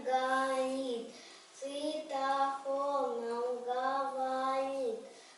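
A young child singing a song in long held notes, with a short pause between phrases about a second in.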